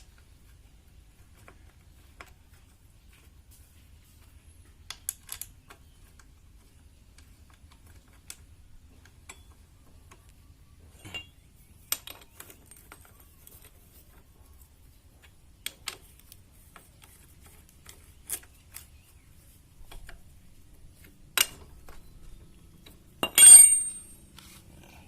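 Scattered light clicks and metallic clinks of tools and brake parts being handled during disc brake reassembly, with a louder ringing metal clatter near the end.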